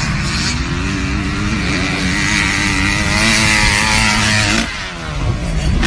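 Dirt bike engine held on the throttle, its pitch climbing a little and then holding steady. The throttle is let off about four and a half seconds in, and the engine revs up again near the end.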